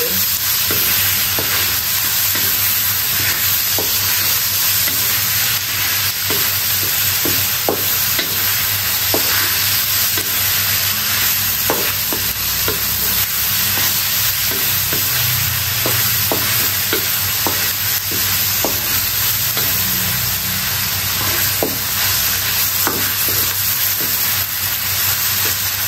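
Pieces of fermented pork sizzling in hot oil in a wok, stir-fried with a wooden spatula that scrapes and knocks against the pan at irregular moments. The meat is being fried until it shrinks, before water goes in for the soup.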